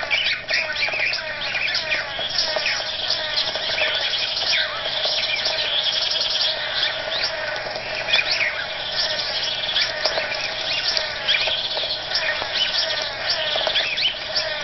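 Blue manakin males calling continuously during their cooperative courtship dance: a dense, unbroken run of short, overlapping chirping calls.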